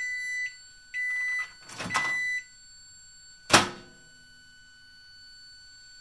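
Jenn-Air microwave's control panel beeping three times, each beep about half a second long, with a few light clicks around the third. About three and a half seconds in comes one loud, sharp clack with a short ringing tail.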